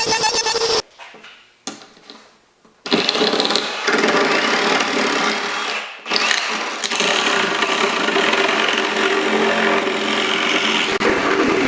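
Power tool running on a bur oak slab to flatten it: it stops about a second in and starts again about three seconds in, then runs on with a brief dip.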